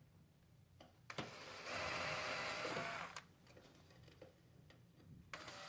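Cordless screw gun whirring in two bursts as it backs out screws: one of about two seconds starting just after a second in, and another starting near the end, with a few light clicks in between.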